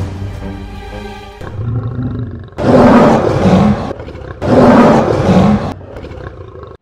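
Background music, then a lion roaring twice; each roar lasts about a second, with a short gap between them.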